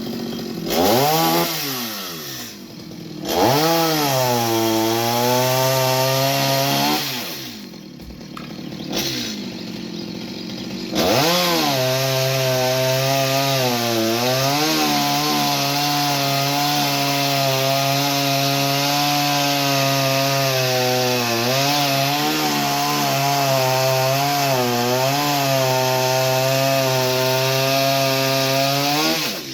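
Chainsaw engine revved up in two short bursts, then held at high revs for about eighteen seconds while cutting wood, its pitch dipping now and then. It drops off at the very end.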